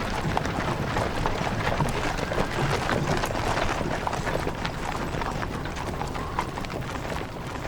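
Horses galloping: a dense, irregular clatter of hoofbeats.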